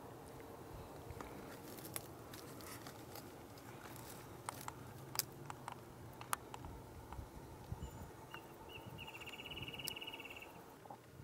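Faint scattered clicks and crackles, then a fast, high, pulsed buzzing call lasting about a second and a half near the end, from an animal.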